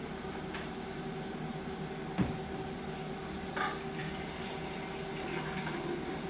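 Steady background hum with a single knock about two seconds in, then a brief splash of water from a hose into a film developing tank just past halfway, with fainter trickling near the end.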